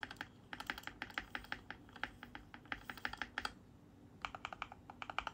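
Typing on a Keychron Q2 Pro mechanical keyboard with its aluminium case: a quick run of keystrokes, a short pause a little past the middle, then typing resumes.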